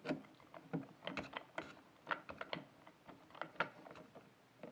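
A screwdriver turning a small screw into the M.2 SSD heatsink on a motherboard, making a run of irregular small clicks as it is tightened by hand.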